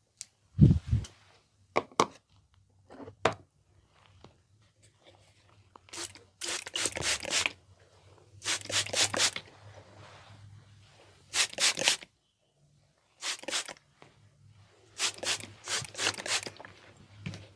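Fingers scratching through hair on a scalp, close to the microphone, in quick scratchy strokes that come in bursts of about a second with short pauses between. A low thump and a few sharp clicks come in the first few seconds.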